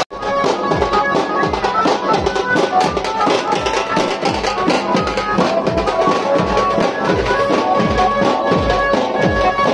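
Loud procession music: a drum band of large barrel drums beating a fast rhythm, with a heavy bass thump about twice a second under a high held melody.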